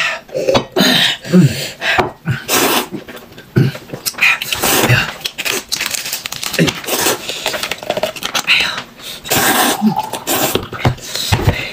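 Drinking gulps, then noodles slurped in quick, noisy bursts, with short grunts and hums between the mouthfuls.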